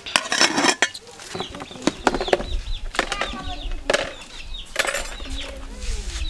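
Chickens clucking, with sharp clinks and clatter of pots and basins being handled.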